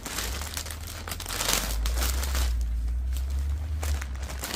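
Thin plastic vacuum storage bag crinkling and rustling as it is handled and clothes are pushed into it, with a low rumble underneath that is strongest in the middle.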